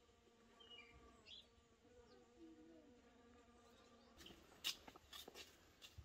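A flying insect buzzing faintly, its hum wavering in pitch, with a few short high chirps in the first second and a half. From about two-thirds of the way through come a handful of light, sharp clicks and knocks.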